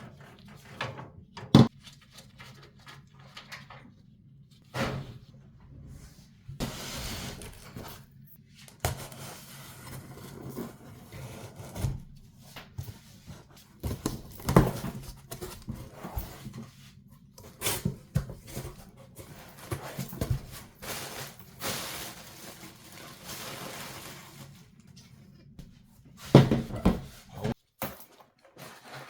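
Hands handling computer parts and packaging: scattered sharp clicks and knocks, with stretches of rustling, over a faint steady hum.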